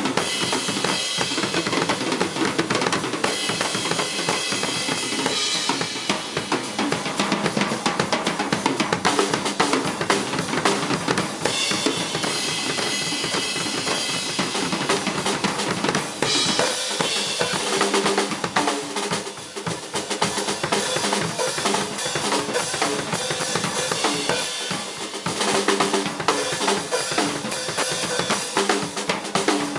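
Solo drum kit played fast and dense, with rapid bass drum, snare and tom strokes and rimshots. Cymbal wash rises over the drums near the start and again about halfway through.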